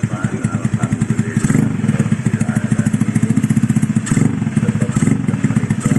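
Single-cylinder four-stroke engine of a carburetted Honda Vario 110 scooter bored to 130cc, running through an ABF Racing oval R-series full-system exhaust on light throttle. The exhaust gives an even, rapid pulsing note that swells slightly about a second and a half in and again around four seconds.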